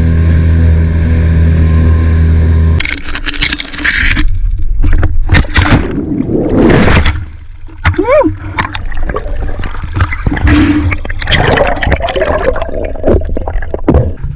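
A small boat's outboard motor running steadily at speed for about the first three seconds, cutting off abruptly; then irregular splashing and rushing water with a few brief squeaky pitch glides near the middle.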